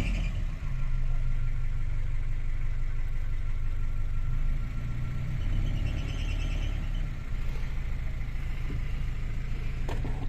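Broom DC 30's inboard engine idling steadily.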